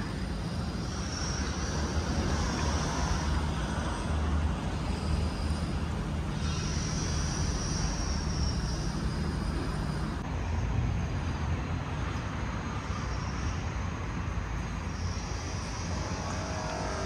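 A large motor yacht's engines running, a steady low rumble, with a faint high whine that comes and goes.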